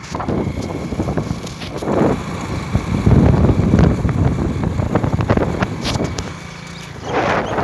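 Wind buffeting a phone's microphone on a moving motorcycle, a gusty rumble that rises and falls, with the ride's road noise underneath.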